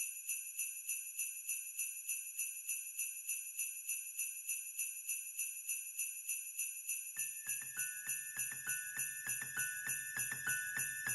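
Jingle bells shaken in a steady, even rhythm, opening a Christmas music piece. About seven seconds in, low notes and a higher held tone join the bells.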